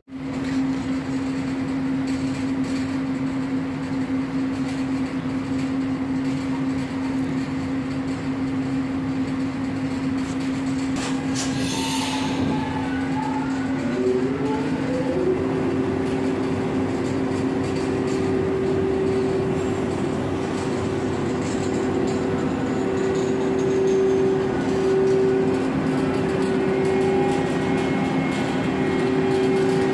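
Thalys TGV power car humming close by, with a steady electrical whine over the machinery noise. About halfway through there is a short hiss, then the whine glides up in pitch and holds at the higher note.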